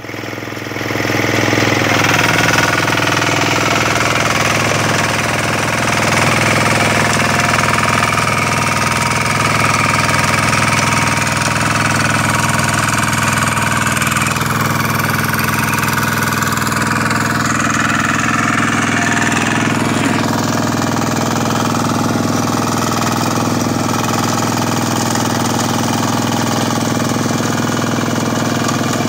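Kubota RT140 power tiller's single-cylinder diesel engine running steadily under load as it pulls the rotary tiller through a flooded paddy field.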